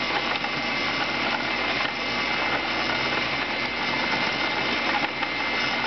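Home-built CNC coil winder running steadily as it winds 24-gauge Litz wire onto a bobbin: a continuous motor whine with a constant high-pitched tone over a low hum.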